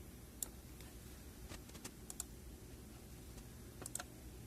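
A few faint, scattered computer keyboard clicks, single keystrokes spaced irregularly, over a low steady hum.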